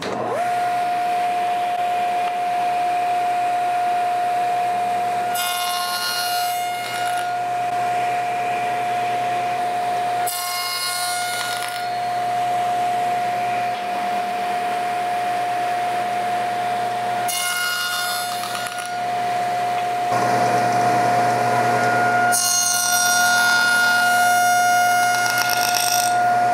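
Sliding table saw fitted with a dado blade, running steadily with a constant whine. Several times a wooden bar is pushed through it, each pass adding a louder rasping as the blade cuts a half-lap notch. The last and longest pass comes near the end.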